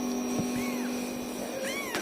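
Young kittens mewing: two short, high, thin cries that rise and fall in pitch, over a steady background hum.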